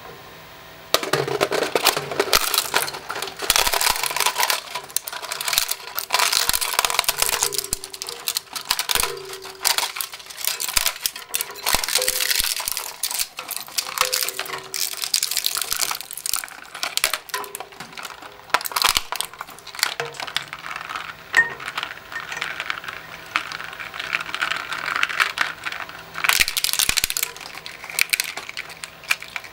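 Twin-shaft shredder breaking up a hard plastic toy: rapid, irregular cracking, snapping and crunching of plastic from about a second in, over the steady hum of the shredder running.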